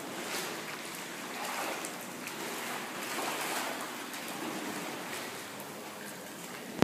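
Water of a thermal spa pool rushing and sloshing steadily, with splashing as a person wades through it.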